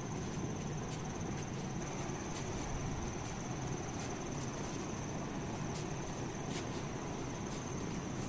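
Room tone: a steady low hiss with a constant high-pitched whine and scattered faint clicks.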